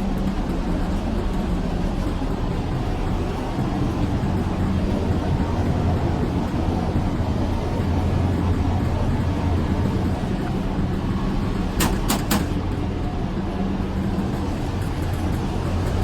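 Steady low machine hum with a constant drone. Three quick clicks come about twelve seconds in.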